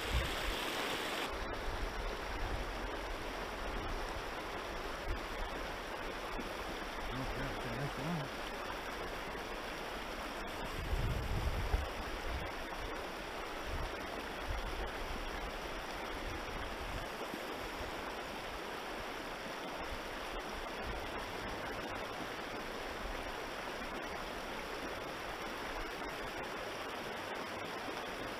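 Kings River current rushing over its bed, a steady even hiss of flowing water, with a brief low rumble about eleven seconds in.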